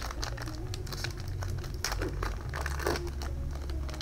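Foil booster pack wrapper crinkling and tearing as it is opened by hand: a run of quick crackles, loudest about three seconds in.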